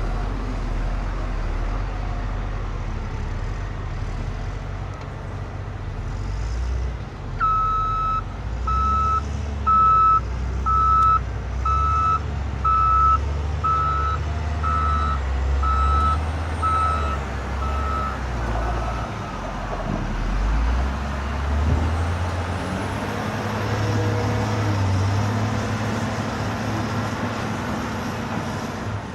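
Electronic reversing beeper of a toy construction vehicle, beeping about once a second for roughly ten seconds, over a steady low rumble.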